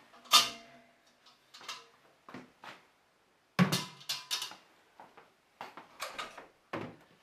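Clanks and knocks of a stainless-steel milking-machine bucket being lifted off its wall hook and set down, with a louder cluster of clatter a little past halfway. Near the end come lighter rattles as the milker's hoses and fittings are taken off their bracket.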